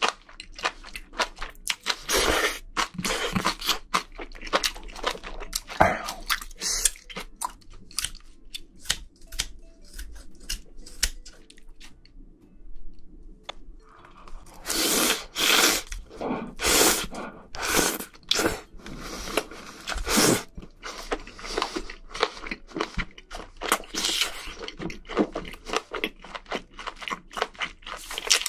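Close-miked eating sounds of a person chewing spicy seafood: a dense stream of short wet chewing clicks, pausing briefly, then a run of louder, longer mouth sounds from about halfway through.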